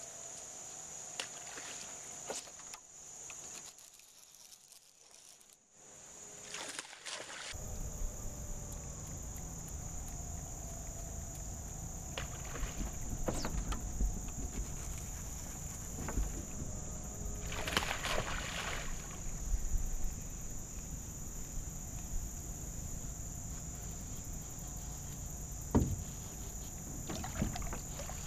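Lake sounds from a small fishing boat: a steady high whine of insects over a low rumble of wind and water against the boat, with a few short splashes. Near the end come sharp splashes from a hooked largemouth bass thrashing at the surface.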